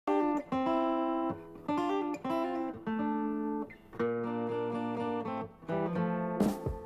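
Guitar playing a rock song's intro: ringing chords held in short phrases with brief gaps between them. The drum kit comes in near the end.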